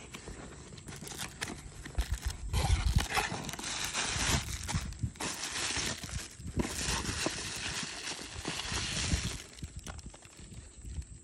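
Cardboard shipping box opened by hand, then bubble wrap crinkling and rustling as it is pulled out and handled, from about two and a half seconds in to about nine and a half seconds, with scattered knocks of cardboard being handled.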